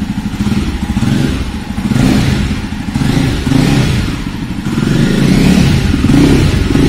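Jawa Perak's 334 cc single-cylinder engine running and revved on the throttle, the note swelling and dropping back about five times.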